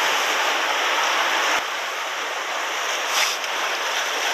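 Sea surf breaking and washing over shoreline rocks, a steady rushing hiss that eases a little about a second and a half in.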